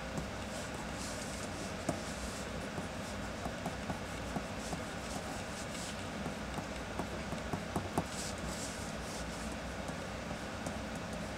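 Mechanical pencil scratching across drawing paper in spells of quick strokes, with a few light ticks, over a steady low room hum.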